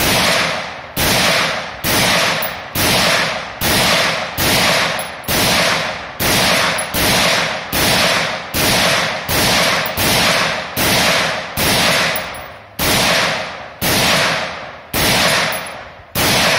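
Colt Competition .223 rifle fired semi-automatically through a magazine: about nineteen single shots at roughly one a second, each trailing off over most of a second before the next, the spacing widening slightly toward the end.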